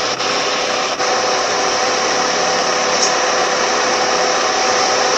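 Car air-conditioning blower fan running: a steady rush of air with a steady hum, with a faint click just after it starts and another about a second in.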